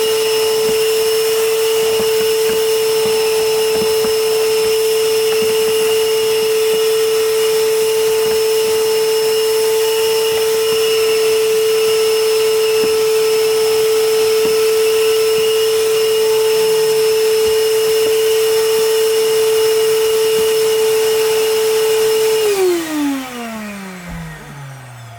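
Vacuum cleaner running steadily with a high, even motor whine while cleaning a car's interior carpet, then switched off about 22 seconds in, its pitch falling as the motor spins down.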